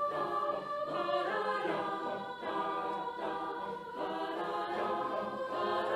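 Background music: a choir singing long held chords, the chord changing every second or so.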